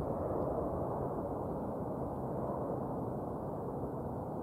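Twin-engine jet airliner climbing away after takeoff: a steady low roar from its engines, slowly fading.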